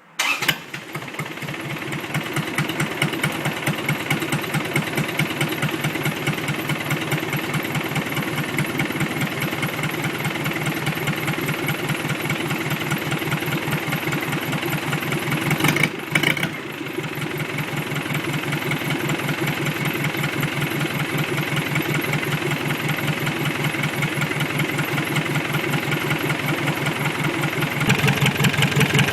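Isuzu D-Max diesel engine running at idle with a steady, even clatter. It comes in suddenly just after the start, drops out for a moment about halfway through, and runs a little louder near the end.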